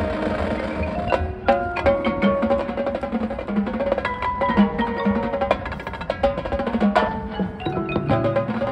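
High school marching band playing: held wind chords with mallet percussion and many sharp percussion strikes.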